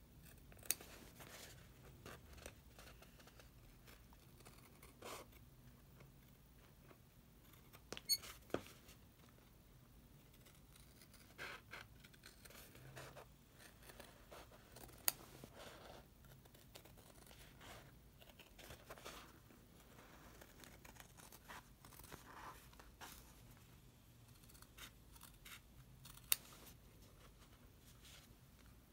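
Gingher dressmaker's scissors cutting through a sheet of faux leather: faint, irregular snips and rustles of the material, with a few sharper clicks of the blades.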